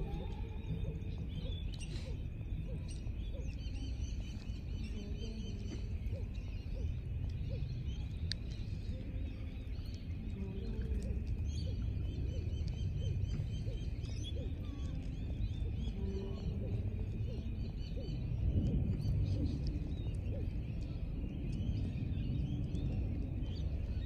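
Outdoor ambience: steady low wind rumble on the microphone, with faint, repeated high chirping of birds in the background.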